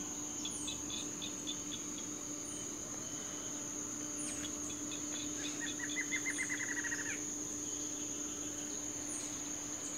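Insects droning in a steady, high-pitched whine, with short chirps every couple of seconds and a brief pulsed trill about six seconds in.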